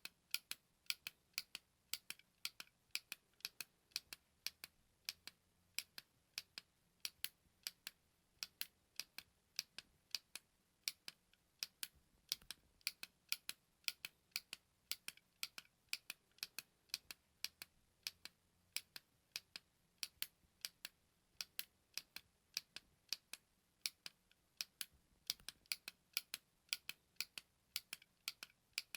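A small button being pressed over and over: short, sharp clicks, a few a second at an uneven pace, some coming in quick pairs.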